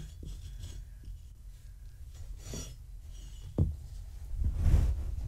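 A hand rubbing and rustling a cloth blanket while picking clumps of shed cat fur off it. There is a sharp knock about three and a half seconds in, and the rustling gets louder near the end.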